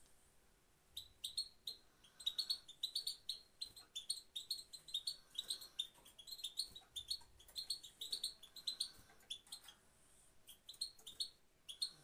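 Female European goldfinch chattering: a rapid run of short, high chirps starting about a second in, with a brief pause near the end.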